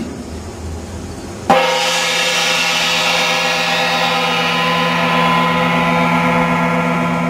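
A gong-like metallic tone: struck once about a second and a half in, then ringing on steadily with many overtones, the highest of them slowly fading.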